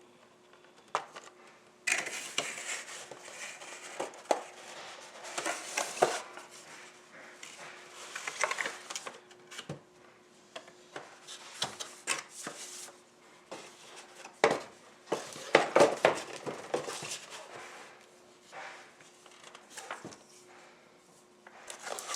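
Plastic packaging and parts being handled while a toy helicopter is unboxed: irregular rustling and scraping with light clicks and knocks of plastic, in short bursts with pauses between. A faint steady hum runs underneath.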